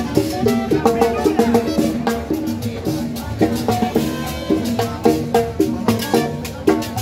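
Live Latin dance music from a street band, with congas and timbales keeping a steady, driving beat under a pitched melody.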